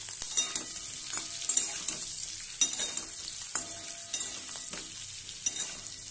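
Boiled whole potatoes sizzling as they fry lightly in hot oil in a metal kadai, with a steady high hiss. A metal spatula scrapes and knocks against the pan about eight times as the potatoes are turned.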